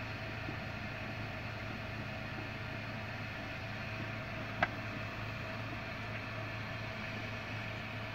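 Steady background hum and hiss, with one sharp click about halfway through.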